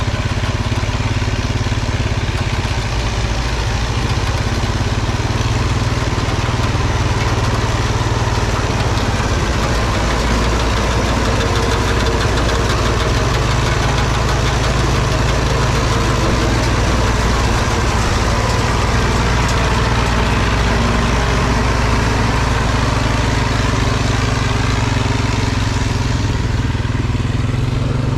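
Case 830 tractor engine running steadily while powering a round baler.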